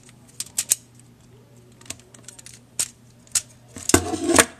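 Hard plastic parts of a Transformers Scorponok deluxe action figure clicking as its joints and legs are moved by hand, a few separate clicks spaced out. Near the end comes a louder knocking clatter as the toy is handled at the table.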